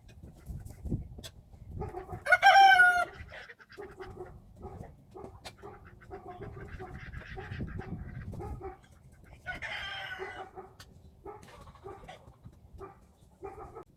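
Chickens clucking in short repeated calls, with a loud rooster call about two seconds in and a weaker one around ten seconds, over low scuffling and rustling.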